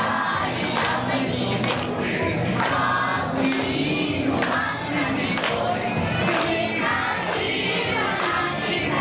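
Children's choir singing an upbeat song together, with a sharp beat about twice a second running through it.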